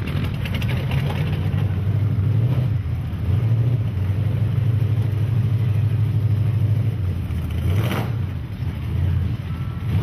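Mud truck's engine running steadily at low speed, a low drone heard close up from on the truck, easing briefly about three and eight seconds in. A short knock near eight seconds.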